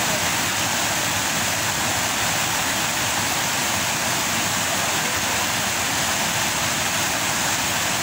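Waterfall cascading over rocks: a steady, even rush of white water that does not change.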